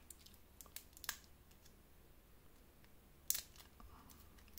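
Faint crinkles and small clicks of fingers picking at the plastic wrap on a deck of trading cards, with a sharper crackle a little after three seconds in.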